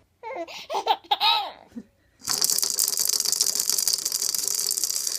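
A young child's high voice squeals and laughs for under two seconds. Then a fast, steady rattling, like a shaken toy rattle, runs for about three seconds.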